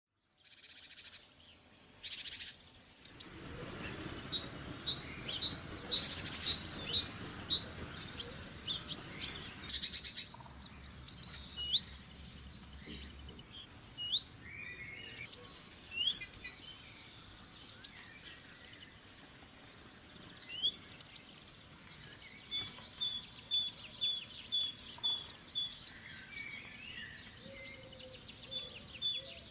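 Blue tit singing: a short, high, rapid trill, repeated every few seconds, with softer thin chips and calls in between.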